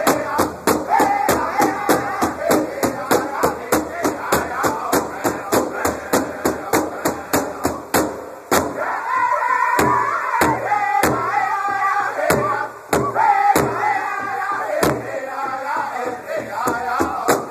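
Powwow drum group: several men beating a large shared bass drum with sticks in a steady fast pulse while singing together in high, strained voices. For a few seconds past the middle the drumbeats come further apart, then the steady pulse returns.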